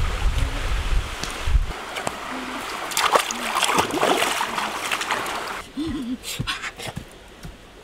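Water splashing as a person wades and steps through a shallow, muddy river, with many short splashes. The splashing stops about five and a half seconds in, leaving a few clicks and a short wavering voice-like sound.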